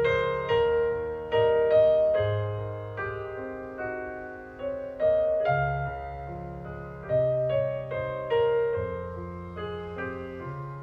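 Background piano music: a slow melody of struck notes that die away, over low bass notes.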